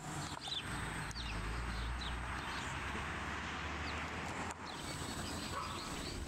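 Outdoor ambience: small birds chirping in short, scattered notes over a steady hiss and low rumble.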